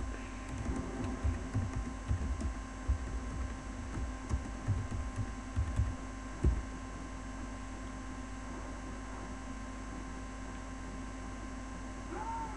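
Steady electrical hum with several constant tones. Over it, during the first six seconds or so, come irregular dull taps of typing on a computer keyboard; after that only the hum remains.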